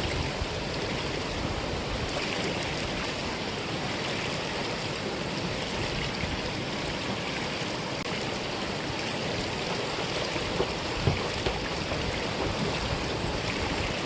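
Mountain valley stream flowing with a steady rush of water.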